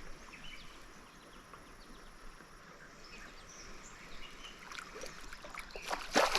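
Riverside outdoor ambience: a low steady hiss with faint scattered chirps, and one short, louder burst of noise near the end.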